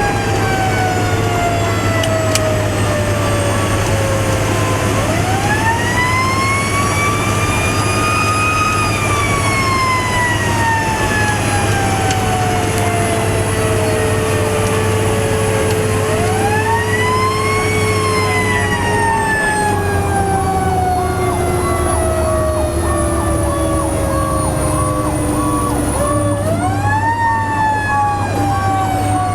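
Fire truck siren on an emergency response, wailing up and then winding slowly down, three times, over the truck engine's steady drone.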